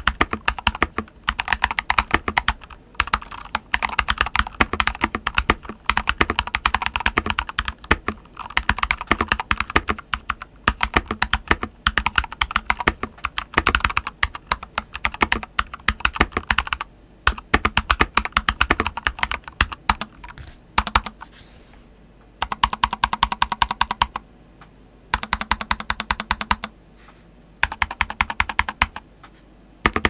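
Mechanical keyboard typing test: a CIY Tester84 with AEBoards Naevy R2 tactile switches and SA-profile ABS keycaps, its hollow space bar lined with a layer of butyl rubber. The typing comes in runs of clicks and clacks with short pauses, and the runs in the last third are quicker and more even.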